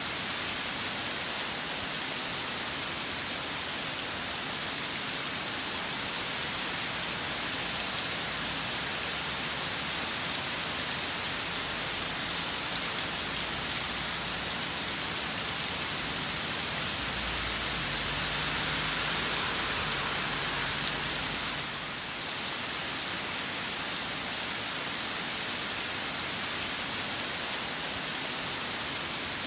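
Rainstorm: rain falling steadily as a dense, even hiss. Past the middle it swells a little for a few seconds, with a low rumble underneath, then settles back.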